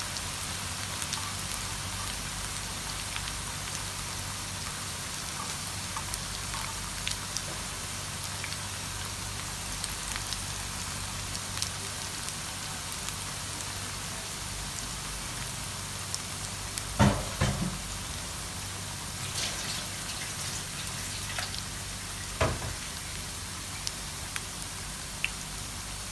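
Onion pakkavada (pakoda) fritters deep-frying in hot oil in a pan: a steady bubbling sizzle with scattered small crackles and pops. Two brief louder thumps come in the second half.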